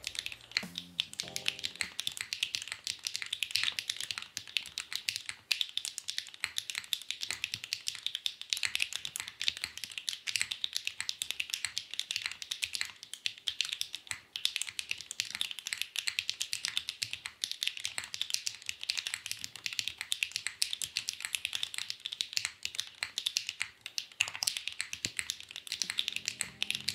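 Fast, continuous typing on a plateless QK Neo70 mechanical keyboard: a steady stream of many keystrokes a second, a crisp, even clacking. Music can be heard briefly at the start and again near the end.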